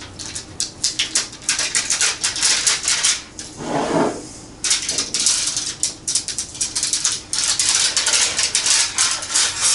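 Aluminium foil being folded and creased by hand into a small packet, a dense, rapid crinkling crackle. About four seconds in the crinkling pauses briefly for a softer, lower sound before it resumes.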